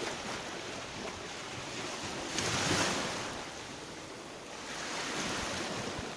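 Black Sea surf washing onto the shore, with a wave breaking more loudly about two and a half seconds in and another swell near the end.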